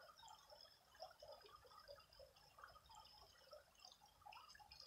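Near silence: faint room tone with scattered, irregular faint blips.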